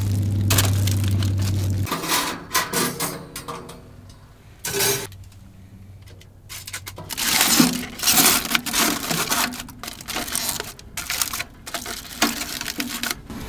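Irregular clinks, knocks and clatter of hard objects, likely metal, being handled. A low steady hum runs for the first two seconds, then stops.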